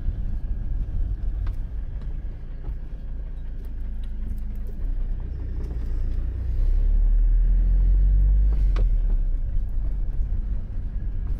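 Motorhome engine and road rumble heard from inside the cab while driving slowly. The low rumble swells for a couple of seconds past the middle, with one sharp click near the end.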